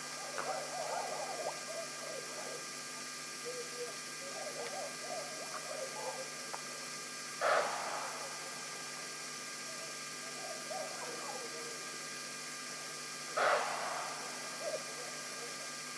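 A pet animal making strange sounds: two short, sharp breathy bursts about six seconds apart, with softer, lower, irregular noises between them.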